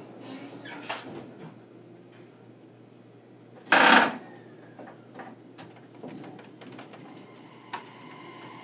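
A JR Kyushu 817 series electric train standing quietly, with a short, loud hiss of released compressed air about three and a half seconds in and a few scattered clicks.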